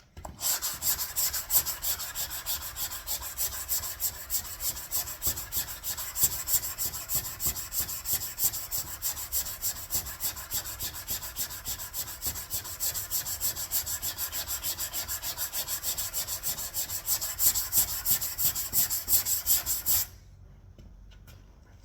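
Hand sanding block with coarse sandpaper rubbed quickly back and forth over cured body filler on a car panel: a steady run of rasping strokes that stops abruptly about two seconds before the end.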